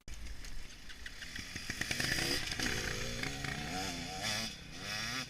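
Dirt bike engine running, its pitch rising and falling with the throttle.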